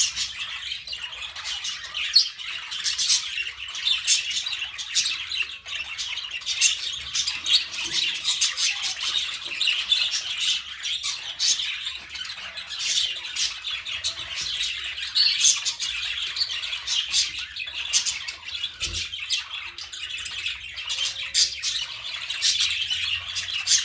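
A flock of birds chirping and squawking without a break, many short calls overlapping in a dense, high-pitched chatter.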